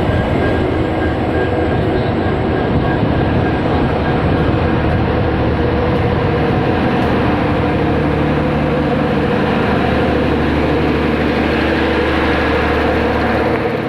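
EMD WDP4D diesel-electric locomotive's two-stroke V16 diesel engine humming steadily, a constant multi-toned drone with no change in pitch.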